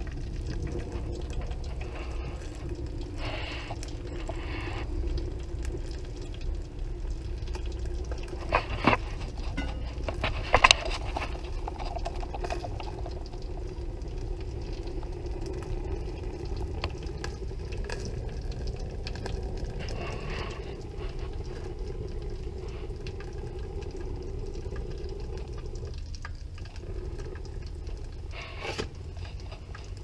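Wood fire burning in a homemade flue-pipe camp stove, with a steady low hum and light crackling. A few sharp knocks come about a third of the way in.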